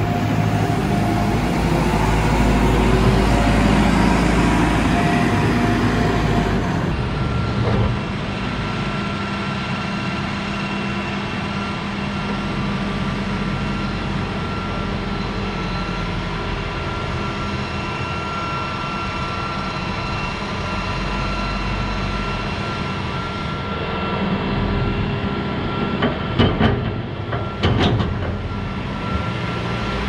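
Farm machinery running: a JCB wheel loader's diesel engine working as it fills a Peecon feed mixer wagon behind a tractor. The sound changes about seven seconds in, and a few sharp knocks come near the end.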